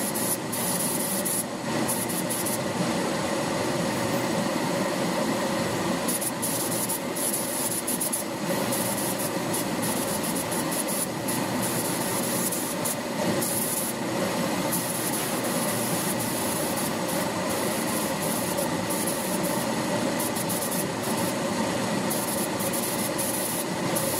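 Gravity-feed compressed-air paint spray gun hissing in repeated bursts as the trigger is pulled and released, coating a steel frame. Underneath is a steady running noise with a constant hum.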